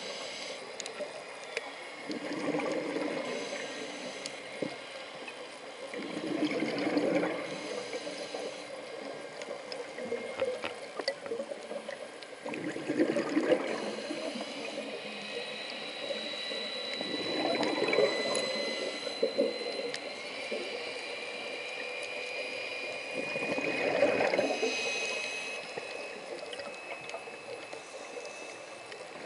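Scuba diver breathing through a regulator underwater: a burst of exhaled bubbles about every five to six seconds, with quieter hissing in between.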